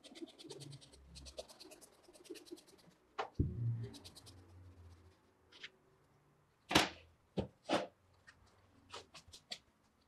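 A knife cutting through mineral wool insulation, a fast scratchy rasp in two runs over the first three seconds, then several knocks and thumps as the slab is pressed into a tray with a wire mesh bottom.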